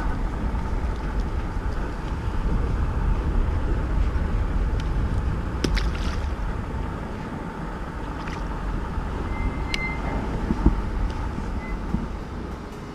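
Strong wind buffeting the microphone: a steady, noisy low rumble, with a couple of faint clicks midway.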